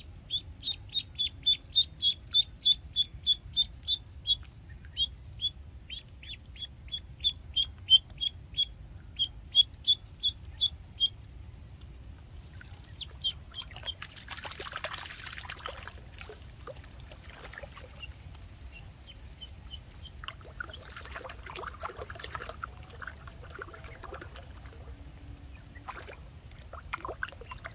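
Duckling peeping over and over in short high calls, about four a second, while it floats on a fishing line as live bait for snakehead. The peeps thin out after about eleven seconds, and a short burst of noise comes midway.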